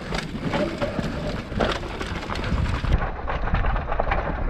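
Mountain bike descending a dirt forest trail: tyres crunching over dirt, roots and leaves, with many quick knocks and rattles from the bike over the bumps and a steady low rumble of wind on the microphone.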